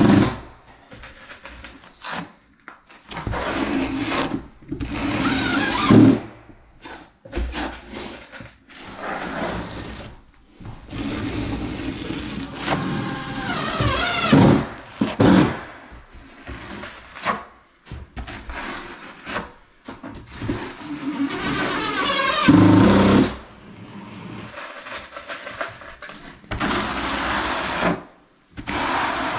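Notched trowel scraping and combing thinset mortar across the floor in repeated strokes with short pauses between them, some strokes squeaking.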